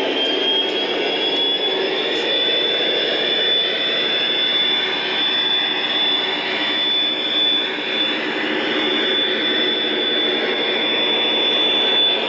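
O scale model train running on its track, heard from a car riding in the train: a steady rolling rattle of wheels on rail with a high whine over it that rises slightly in pitch just after the start.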